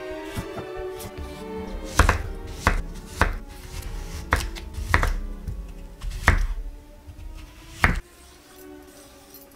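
Kitchen knife chopping green onion and onion on a wooden cutting board: about seven sharp knocks of the blade on the board at uneven intervals, over background music. The knocks stop near the end.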